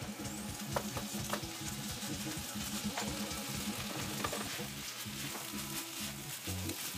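Rice and vegetables sizzling in a hot frying pan while being stirred with a wooden spatula, with a few short scrapes of the spatula against the pan.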